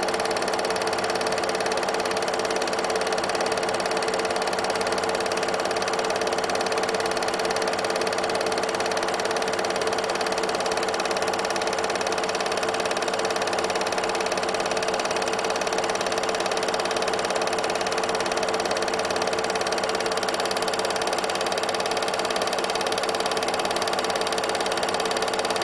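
8 mm film projector running: a steady mechanical whir with a constant pitch, unchanging throughout.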